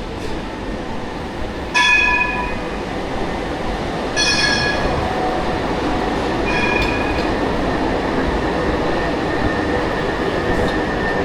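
A tram running close by with a steady rumble that grows louder about four seconds in. Three short, high ringing tones sound about two seconds apart, and a thin high squeal comes in near the end.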